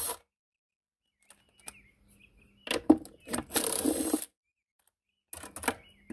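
Cordless impact driver with a socket extension hammering in short bursts on the jet pump's mounting bolts to loosen them: one burst about halfway through and another near the end, with a few sharp metal clicks before them.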